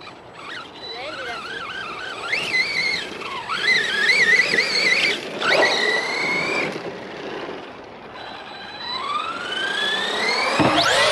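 Arrma Big Rock V3 RC monster truck's electric motor whining as the throttle is worked, its pitch wavering up and down. Near the end it climbs in one long rising whine as the truck speeds up.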